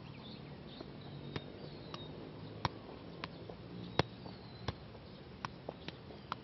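A football being juggled on grass: about ten sharp thuds of the ball off the player's foot and knee, irregular, one to two a second, the loudest about four seconds in. Faint bird chirps sound in the first two seconds.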